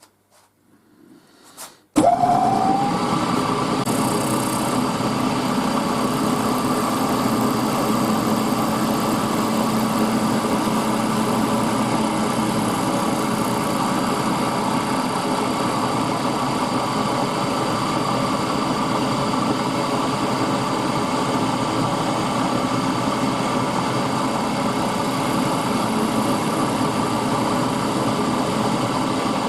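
Milling machine starts up about two seconds in, with a brief rising whine, then runs steadily while lightly skimming the soldered-over pin ends flush on brass brackets.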